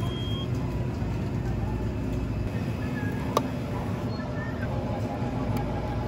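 Steady low machine hum with a single sharp click a little past halfway.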